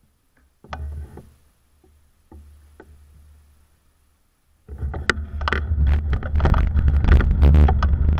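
A bicycle standing still, with a few faint clicks. About halfway in it sets off, and wind rumble on the microphone with rattling over the cracked pavement comes in and grows louder as it picks up speed.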